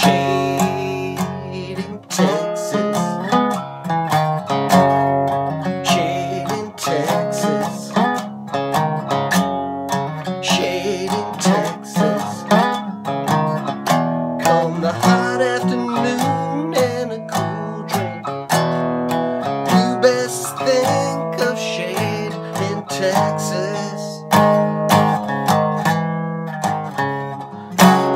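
A guitar strummed and picked, playing a song with an even strumming rhythm.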